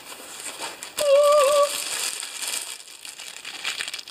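Plastic wrapping crinkling as a new lawn-mower air filter is handled and taken from a box, with a sharp knock about a second in and a brief wavering tone just after it.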